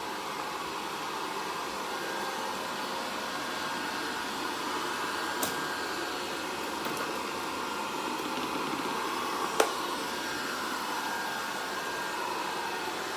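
Minibot robot vacuum cleaner running steadily after being switched on by voice command, with two clicks, the louder one about ten seconds in.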